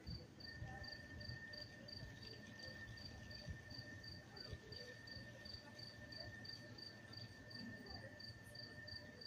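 A cricket chirping faintly and steadily, about three chirps a second, over a low background rumble. A steady high whine comes in about half a second in.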